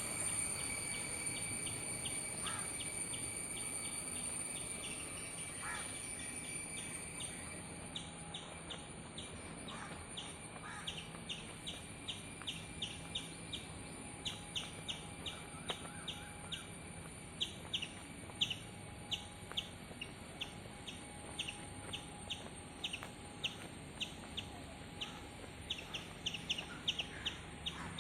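A bird repeating a short, sharp chirp about two to three times a second, with a few other scattered calls, over a steady high-pitched hum in the mangrove woods.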